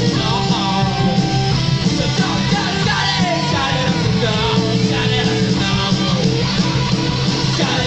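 Live punk rock band playing loudly and without a break: electric guitars, bass and drums, with a singer's voice over them, heard from the crowd in front of the stage.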